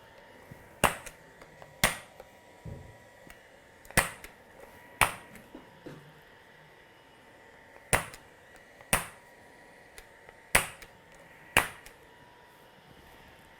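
Spring-loaded chiropractic adjusting gun firing eight sharp clicks, in pairs about a second apart, as it delivers quick thrusts to tight spots along the spine.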